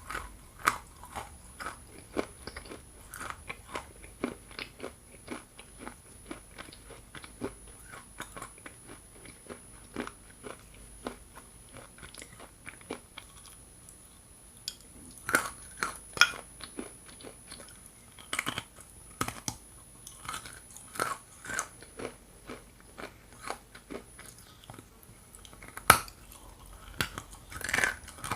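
Close-up crunching and chewing of hard, dry chunks of Ural edible clay: many sharp cracking crunches, with a few louder bites about halfway through and again near the end.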